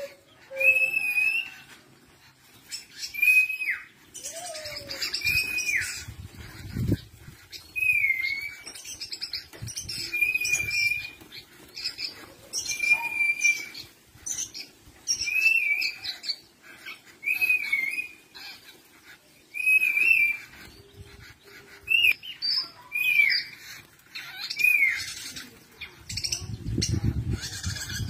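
Long-tailed shrike (cendet) singing: a short whistled phrase repeated about every two seconds, many of them ending in a downward slur, with scratchy chatter between phrases.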